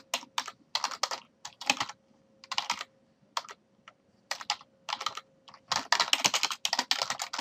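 Computer keyboard typing in irregular bursts of keystrokes, with a fast, dense run of typing near the end.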